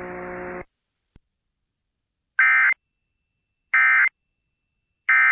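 Emergency Alert System end-of-message data tones: three short, identical buzzy bursts about one and a half seconds apart, the warbling digital 'NNNN' signal that closes an EAS alert. Before them a low steady hum stops about half a second in.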